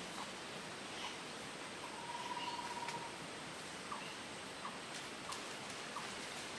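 Forest-edge ambience: a steady hiss with short high chirps about once a second, and one even trill lasting about a second near the two-second mark.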